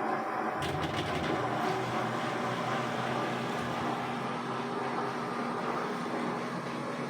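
Front-loading 10 kg/6 kg washer-dryer running with a steady mechanical hum and whir, and a few sharp clicks about a second in. This is the abnormal noise the machine is making.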